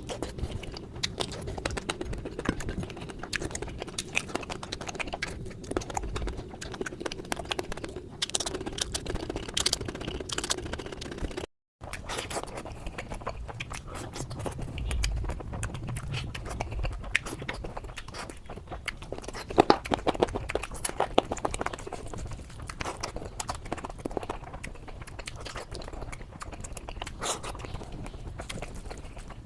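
Close-up eating sounds: chewing and crunching, with many small clicks and mouth smacks. A steady low hum runs under the first third, and the sound drops out briefly where one clip cuts to the next.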